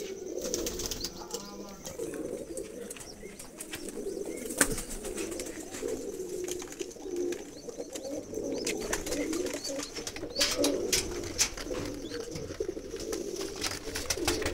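Many domestic pigeons cooing together in a loft, a steady wavering murmur, with a few sharp clicks scattered through it.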